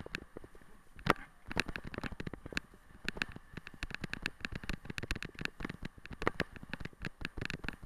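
Rapid, irregular clicks and rattles, several a second with one sharper knock about a second in: a wheeled dog rig and its handlebar-mounted camera jolting over a rough dirt track at speed.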